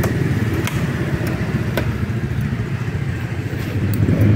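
Steady low rumble of an engine running in the background, with a few faint light clicks.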